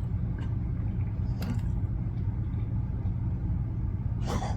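Steady low hum, with a few short eating noises from someone chewing waffles; the loudest comes about four seconds in.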